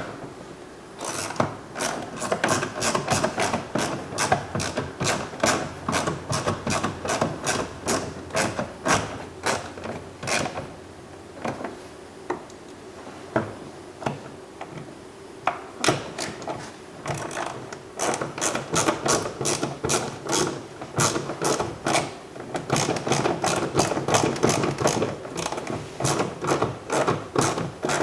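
Ratcheting screwdriver clicking in repeated runs as T20 Torx screws are driven into a car's door trim panel, with a sparser spell partway through.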